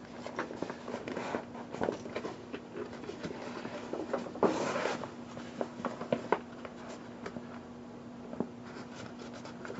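Hands working on a fabric pannier bag: the bag's material rustles, with scattered small clicks and taps of bolts and hard backing-plate parts being handled and fitted, and a longer rustle about four and a half seconds in.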